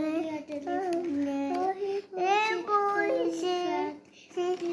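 A young child singing a self-made nursery rhyme, with held, sliding notes and a short break about four seconds in.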